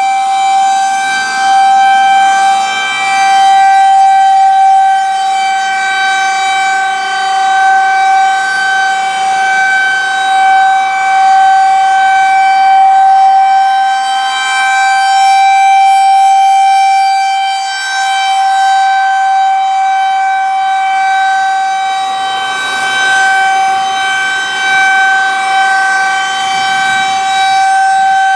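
Federal Signal 2001-130 rotating electromechanical outdoor warning siren sounding a steady Alert tone: one held pitch that stays level, swelling and fading in loudness as the horn turns.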